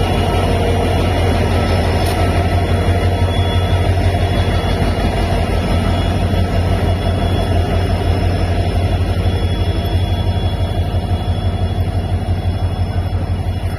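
WDG4 diesel-electric locomotive's 16-cylinder two-stroke EMD engine running at close range: a steady, heavy low throb with a fast, even pulse.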